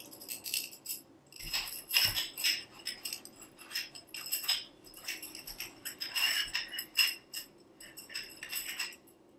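Aluminium tensegrity tubes clinking and rattling against each other as they are handled and cord links with metal ends are hooked onto them. The irregular clinks set the tubes briefly ringing at a few high pitches.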